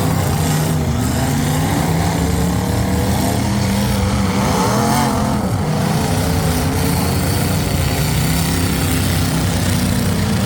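Several demolition derby cars' engines running and revving together, their pitch rising and falling unevenly as the drivers work the throttles.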